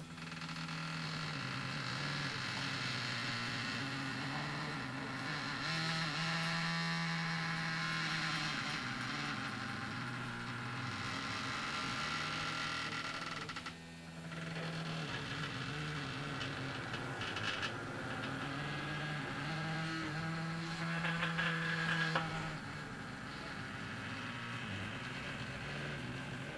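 Stepper motors of a homemade XY table running slowly, a steady humming whine that shifts between a few pitches as the carriages travel along their metal rails. The whine breaks off briefly about halfway through and then resumes, with some rattling of the slides later on.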